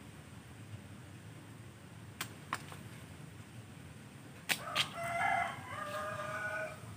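Pruning shears snip twice with sharp clicks about two seconds in, and twice again around four and a half seconds, cutting fig leaf stems. A rooster then crows for about two seconds, louder than the snips.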